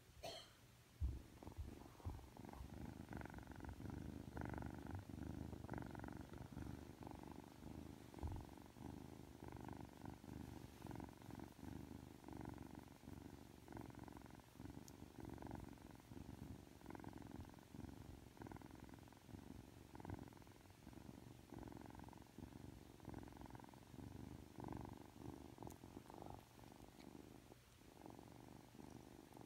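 Ragdoll kitten purring steadily while being stroked, a faint low rumble with a regular rise and fall.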